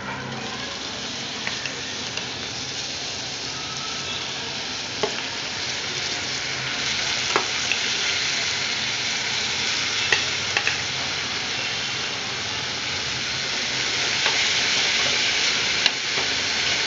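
Soaked, drained moong dal sizzling as it fries in hot oil with onions in a kadhai while a spatula stirs it, with a few short clicks of the spatula against the pan. The sizzle builds slowly and is loudest near the end.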